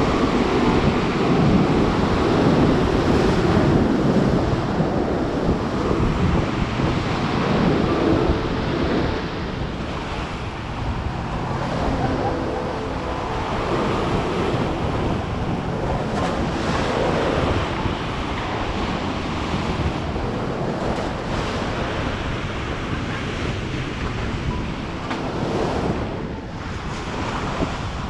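Black Sea surf breaking and washing up a pebble beach, swelling and easing with each wave, with wind buffeting the microphone.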